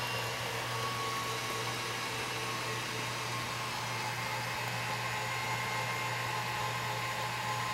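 Kenwood stand mixer running at one steady speed, a whirring hiss with a steady whine over it, as it beats choux pastry dough.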